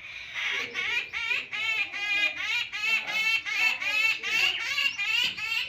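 A bird calling in a rapid, even series of short high notes, about four a second.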